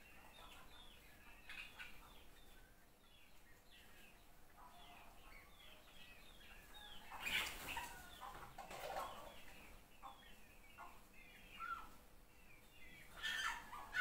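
Chickens chirping in a steady run of short, downward-sliding calls, with louder, noisier bursts about seven seconds in and again near the end.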